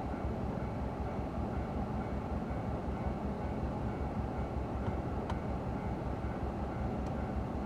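Subaru Impreza's flat-four engine idling, a steady low rumble with an even pulse, heard inside the car's cabin. A few faint clicks come in the second half.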